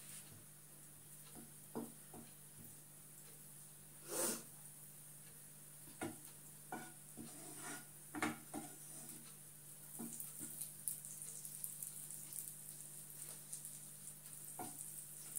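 Butter melting in a non-stick frying pan and pushed around with a wooden spatula: a few soft scrapes and knocks of the spatula on the pan, then a faint crackling sizzle that sets in about two-thirds of the way through and keeps growing as the butter heats.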